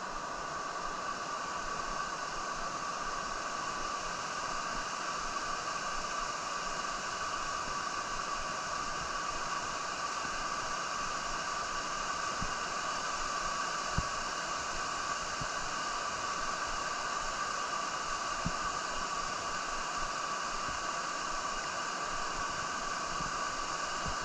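Water pouring over a creek dam: a steady rushing hiss that does not change.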